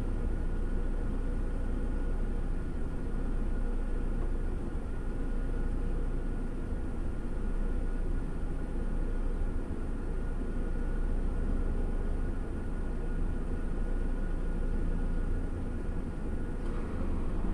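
Steady low rumble of a vehicle idling, heard from inside its cab, with a faint steady whine over it.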